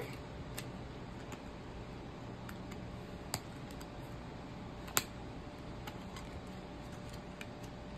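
Small plastic clicks and taps, scattered and irregular, as the plastic pieces of a toy doll stand are handled, with the sharpest click about five seconds in. A faint steady hum runs underneath.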